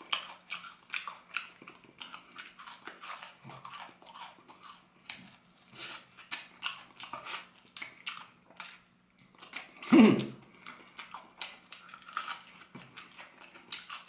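Close-up chewing and biting of crispy potato-starch-coated fried chicken: many short, sharp crunches and mouth sounds. There is a single louder sound about ten seconds in.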